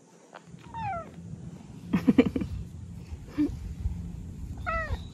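Orange tabby cat giving several short meows: a falling one about a second in, low ones about two seconds in, and an arched one near the end. Its voice has returned after being lost.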